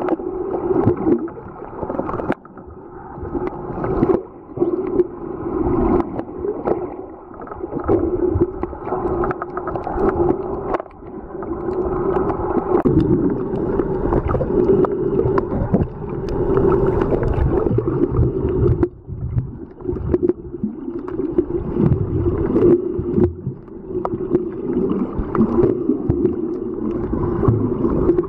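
Muffled underwater sound from a camera held below the surface: water moving and gurgling, swelling and fading, with scattered knocks.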